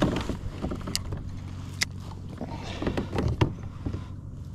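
Handling noises on a fishing kayak: a few sharp clicks and knocks of gear, two about a second apart and a small cluster about three seconds in, over a steady low hum.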